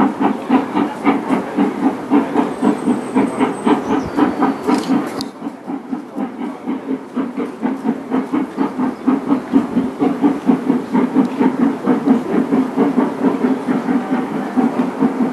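Steam locomotive hauling a train of coaches, its exhaust chuffing in a quick, even rhythm. The beats fade for a moment about five seconds in, then grow louder again.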